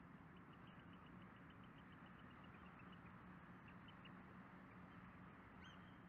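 Dunlin flock feeding, giving faint, quick high twittering chirps for the first four seconds or so, then a single rising call near the end, over a steady low background hum.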